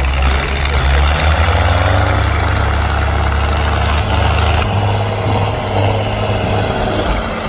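Dutra tractors' diesel engines running hard under full throttle, a deep heavy drone. The note drops and eases about five seconds in as the tractor slows.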